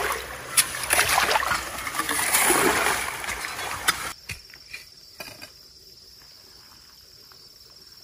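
Hoe blade scraping and sloshing through muddy water in a freshly dug drainage ditch, with a few sharp knocks. It cuts off about four seconds in, leaving only a faint steady high tone.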